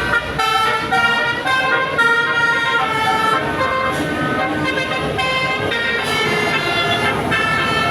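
Bus 'telolet' musical horn of the Basuri type playing a quick melody of stepped tones, with road and engine noise underneath.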